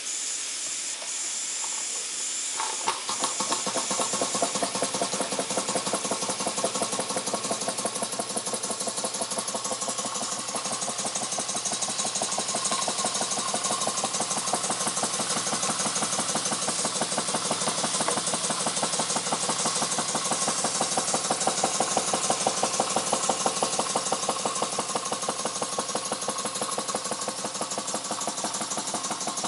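Jensen #50 model steam engine: steam hisses for about three seconds, then the engine starts and runs with rapid, even exhaust beats over the hiss. Its timing and governor are not yet adjusted.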